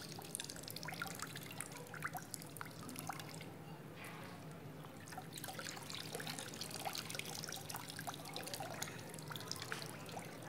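Faint trickling water with irregular drips and small splashes.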